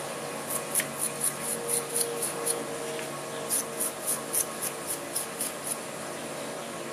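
Toothbrush bristles scrubbing small fishing-reel bearings and parts wet with lighter fluid, in quick brisk strokes about four a second. There are two runs of strokes with a short pause between them.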